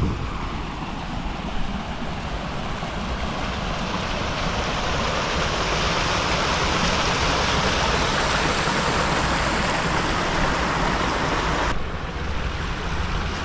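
Small rock waterfall splashing and rushing over boulders into a stream, growing louder as it comes close and dropping away suddenly near the end.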